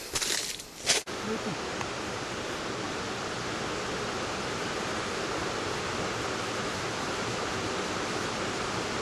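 Waterfall rushing steadily, an even roar of falling water that starts abruptly about a second in, after a few brief, louder noises.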